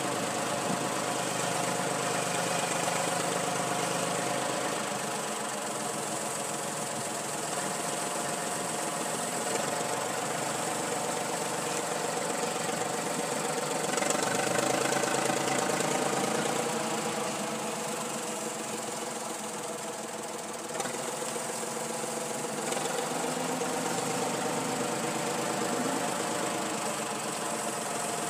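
Deutz tractor's air-cooled diesel engine running steadily under load as it pulls a tow scraper cutting into the soil, a little louder about halfway through.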